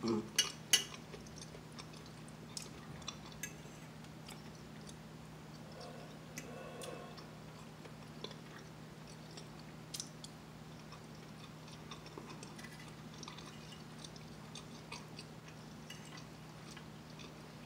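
Quiet eating sounds: a metal fork clicking against a plate and soft chewing, with the loudest clicks just after the start and about ten seconds in. A steady low hum runs underneath.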